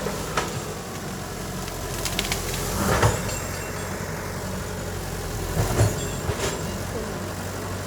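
Heavy diesel engine of construction machinery running steadily, with several sudden clanks and knocks, the loudest about three seconds in and again near six seconds.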